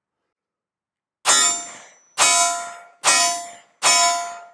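Four shots from a 9mm Smith & Wesson M&P Shield 2.0 pistol firing 147-grain carry ammunition, a little under one per second, each with a ringing tail that dies away before the next.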